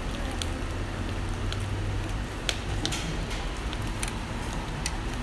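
Mackerel grilling on a wire mesh over charcoal: a steady sizzle with scattered sharp crackles and pops, over a low steady hum.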